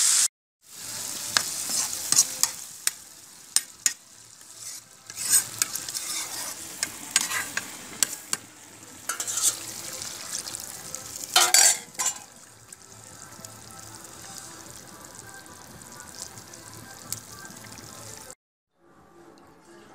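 Vegetables frying and sizzling in a karai while a metal spatula stirs and scrapes the pan, with many sharp clicks of metal on metal. About halfway through there is a loud hissing burst as liquid is poured into the hot pan. After that it settles into a quieter steady simmer.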